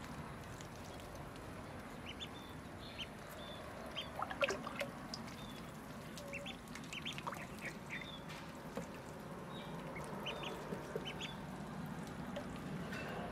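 Ducklings peeping in many short, high calls while they swim in shallow water, over a steady low background wash. The loudest sound comes a little over four seconds in.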